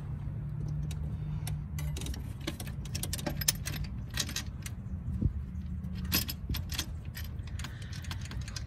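Light metallic clinks and ticks as tools and small metal engine parts are handled on an engine's cylinder head, scattered and irregular, over a low steady hum.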